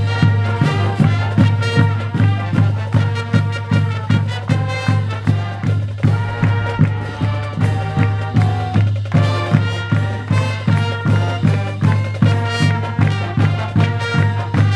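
High school marching band playing a tune at full volume, with brass chords over a sustained low bass note and a steady drum beat of about three strokes a second.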